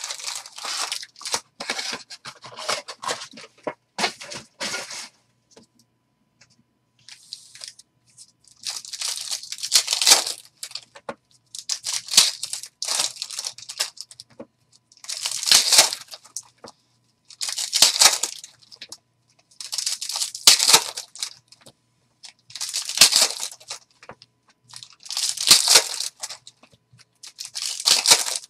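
Foil wrappers of Upper Deck Allure hockey card packs being torn open and crinkled, in repeated crackling bursts about every two to three seconds.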